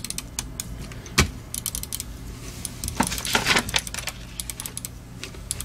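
Logitech G903 gaming mouse buttons clicking over and over in quick, irregular succession, with one louder click about a second in. These are newly fitted Omron Japan D2F-F-3-7 micro switches, put in to cure a double-click and drag-release fault. A short rustling noise comes about three seconds in.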